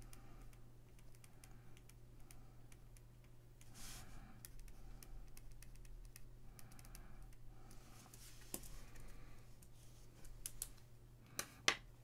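Pen writing on a paper redemption card: faint, scratchy strokes, with two sharp clicks close together near the end.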